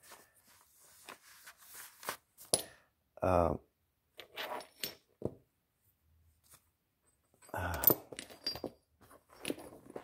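Hard stone pieces clicking and knocking together in scattered, light taps as they are handled and picked through.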